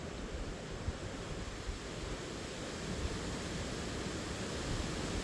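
Steady rush of moving water in strong wind, growing slightly louder toward the end.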